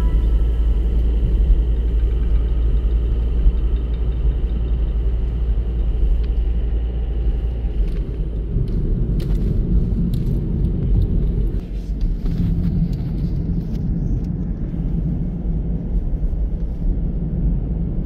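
Steady low rumble of road and engine noise heard from inside a moving car's cabin.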